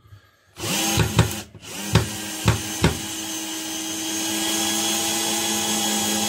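Bosch GSB 120-LI 12 V cordless drill-driver driving a long wood screw into a board without a pilot hole, its motor running steadily under load after a brief stop-start at the beginning. Several sharp knocks in the first few seconds come from the bit jumping in the screw head, which is why the tool is pressed down by hand to keep it seated.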